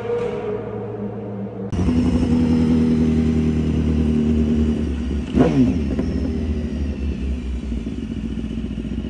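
BMW HP4 superbike's inline-four engine through a full exhaust, running at a steady note. It is quieter at first, gets suddenly louder about two seconds in, and dips sharply in pitch and recovers a little past halfway.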